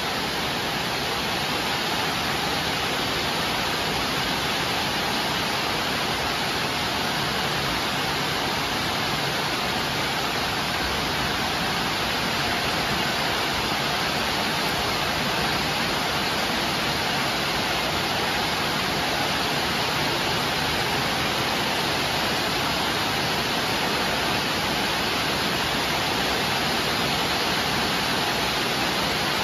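A steady, even hiss that does not change, with no rhythm or separate knocks in it, like static or heavy rain.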